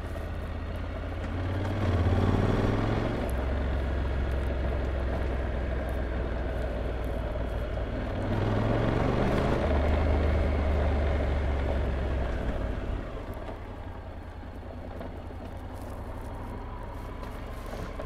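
Honda NC750X motorcycle's parallel-twin engine running on the move. It pulls harder twice, about two seconds in and again about eight seconds in, with its pitch stepping up each time. Near the end it eases off to a quieter steady run.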